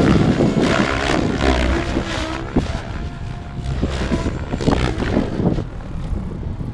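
SAB Goblin 700 Sport electric RC helicopter flying overhead: its brushless motor and rotors whine and whir, with the pitch gliding up and down as it manoeuvres. The sound grows fainter in the second half, with wind rumbling on the microphone.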